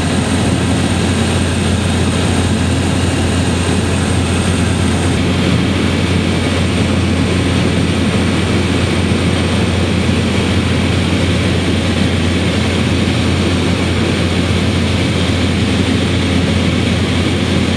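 Steady, loud engine drone with a strong low hum, unchanging throughout.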